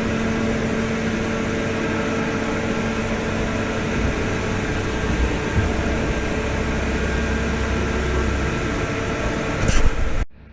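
Hartford PBM135A CNC horizontal boring mill running: a steady mechanical hum with a constant tone, a low rumble strengthening about halfway through, and a sharp click near the end just before the sound cuts off suddenly.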